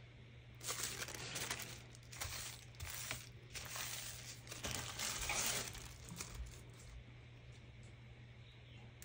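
Crinkling and rustling of paper or plastic craft materials being handled, in a string of short bursts that die away about six seconds in.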